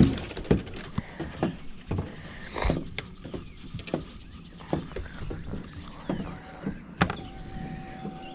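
Handling noise on a fishing boat: clothing rustling against a chest-mounted camera, with scattered knocks and clunks as someone shifts on the deck and rummages in a tackle bag.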